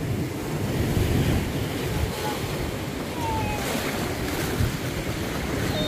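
Ocean waves surging and washing up through a rocky shoreline, a steady rushing wash, with wind buffeting the microphone.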